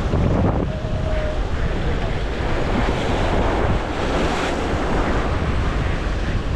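Wind buffeting the microphone over the steady wash of waves.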